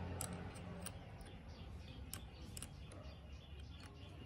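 Light, irregular clicks and ticks of small metal parts and hand tools being handled, about two a second, over a faint low hum that dies away within the first second.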